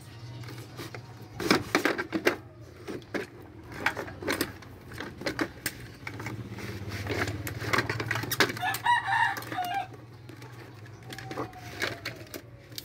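Clicks and clatter of the plastic control box cover of a Carrier window air conditioner being pried off and its wiring handled. A rooster crows briefly about nine seconds in.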